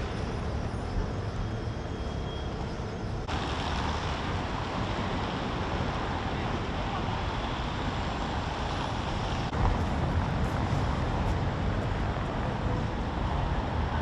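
Steady outdoor city noise: a low rumble of road traffic, with wind on the microphone. The sound changes abruptly about three seconds in and again near ten seconds.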